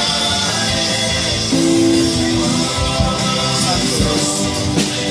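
Christian worship music: instruments playing held notes, with some singing.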